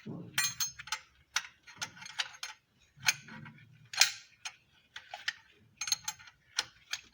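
Irregular sharp metallic clicks and clinks, a couple of dozen spread unevenly over several seconds, with a few dull low knocks among them, from hand tools or parts handled on metal.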